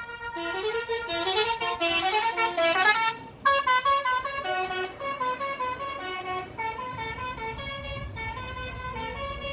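Basuri (telolet) musical air horns of two buses trading melodies: quick runs of stepping tones, then a brief break about three seconds in, then more tunes.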